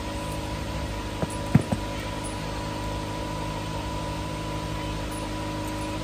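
A steady machine hum with an even hiss, like a fan running. About a second and a half in come two short, sharp clicks from a small part being handled.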